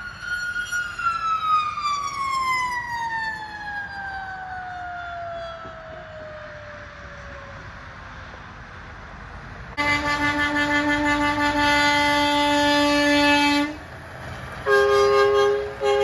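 A mechanical siren winding down, its pitch falling steadily for about seven seconds. Then a truck's multi-note train horn sounds a steady chord for about four seconds. After a short break it blasts again on a different chord.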